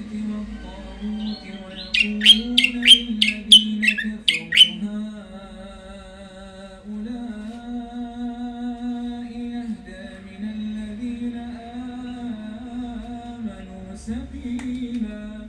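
Caged songbird singing a quick run of about eight loud, sharp whistled notes, then a few short calls near the end. Underneath runs a man's slow chanted recitation with long held notes.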